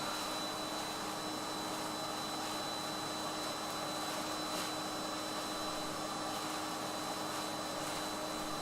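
Steady machine hum and hiss with a constant pitched drone, unchanging throughout.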